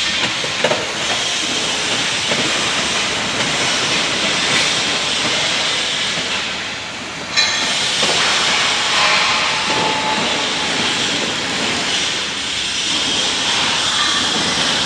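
Workshop machine noise from a CNC steel-punching machine: a steady hiss with a loud, even running noise, broken by one sharp clack about seven seconds in.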